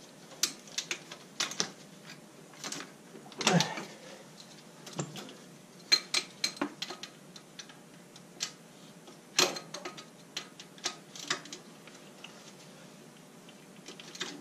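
Hand tools clicking and clinking on metal as the engine's mounting bolts are tightened down onto the tractor frame: irregular sharp clicks, some in quick runs, with a brief scrape about three and a half seconds in.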